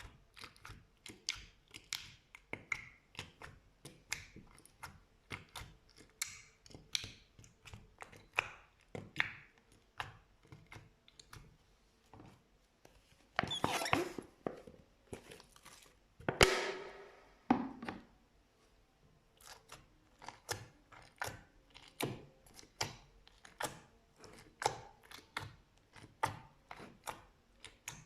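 Slime worked by hand: a run of short sticky pops and clicks, roughly two a second, with two longer noisy stretches of about a second each around the middle.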